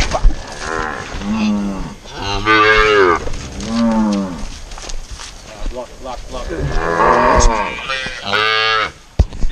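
Cows and calves mooing in a yard: about five long calls in turn, some deep and some higher. The sound cuts off suddenly near the end.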